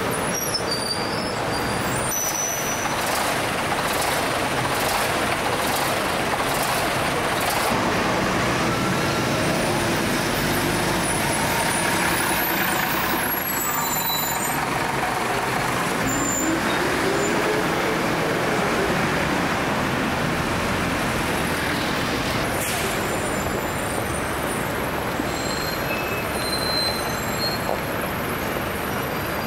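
Busy city-street traffic dominated by diesel double-decker buses, Routemasters among them, running and passing close by, with a steady mix of engine and road noise.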